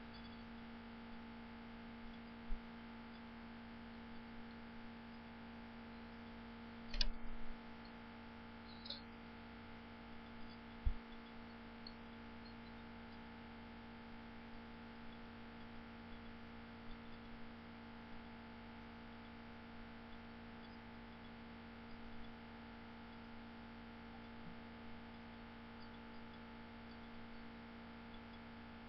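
Faint steady electrical hum in the recording, with a few brief faint clicks.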